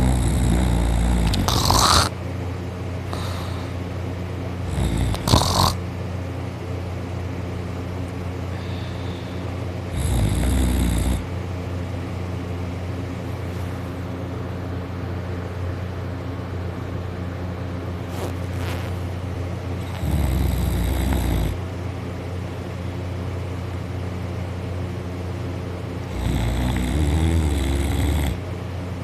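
A sleeping person snoring loudly: five snores, each a second or two long, several seconds apart, over a steady low hum.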